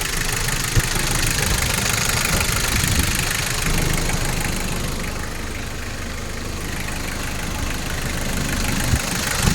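Toyota 1KZ-TE four-cylinder turbodiesel engine idling steadily, running again after its no-start fault was cured by an ECU repair.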